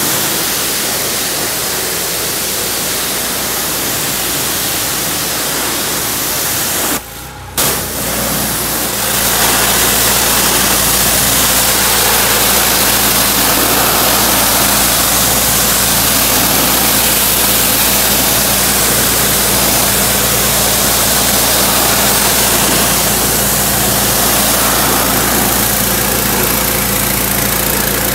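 Gas-engine Simpson 3200 psi pressure washer running steadily, with the hiss of its high-pressure water spray. About seven seconds in the sound breaks off briefly, then the engine's hum comes back steadier and louder.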